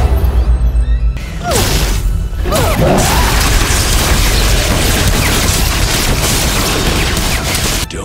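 Action-scene soundtrack: dramatic score over a heavy low booming rumble, with sweeping whooshes in the first few seconds and then a dense, steady hissing rush of sound effects as mist sprays through a containment chamber.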